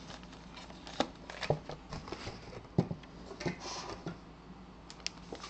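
Handling noise: a paper card and the clear plastic bag around a jersey being touched and moved, giving scattered light taps and a few brief rustles.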